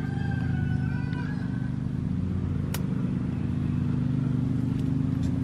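A steady low mechanical drone, like an engine running, holding one even pitch throughout.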